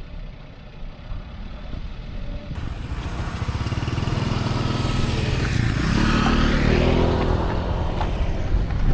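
A motor vehicle engine running, growing steadily louder, with its pitch rising about six to seven seconds in.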